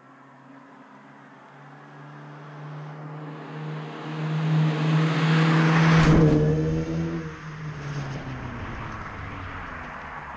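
A car driving past: its engine note builds as it approaches, is loudest about six seconds in, then drops in pitch and fades as it moves away.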